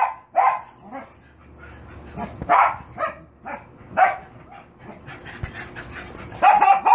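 Cocker spaniels barking in short, separate barks at irregular intervals, with a quick run of barks near the end.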